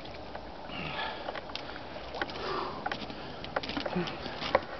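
A man breathing hard and sniffing after a dip in near-freezing lake water, two loud breaths about a second and two and a half seconds in, with scattered clicks as he moves about on the wet wooden dock.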